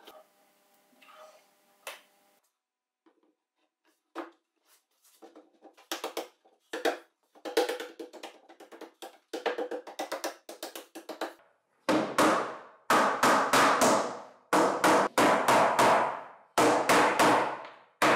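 Hammer knocking on a plywood frame and panels as glued parts of a workbench are driven together: scattered knocks at first, then from about twelve seconds in a fast run of loud, ringing strikes, several a second.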